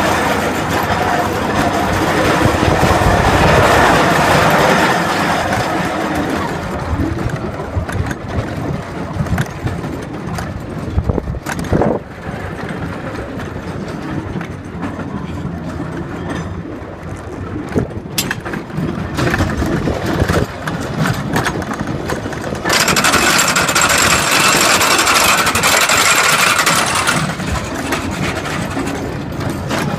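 Roller coaster train rolling along its track, a continuous rumble of wheels on rails mixed with rushing air. There are a few sharp knocks along the way, and about two-thirds of the way through a louder, hissier rush lasts a few seconds.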